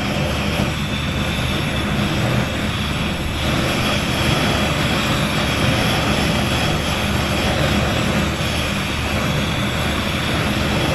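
Butane burner of a Cluemart portable camping stove running with the gas knob open: a loud, steady roar of burning gas. It cuts off suddenly near the end.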